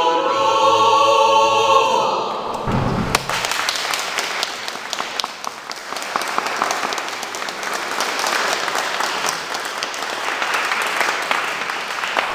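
Three unaccompanied voices hold the final chord of a 16th-century part-song and cut off about two seconds in. After a low thump, the audience applauds steadily.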